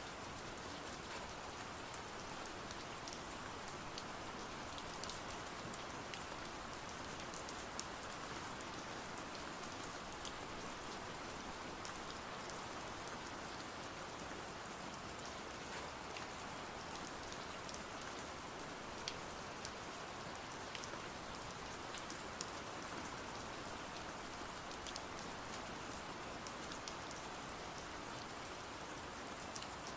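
Steady rain falling, an even hiss with scattered small ticks and taps of drops.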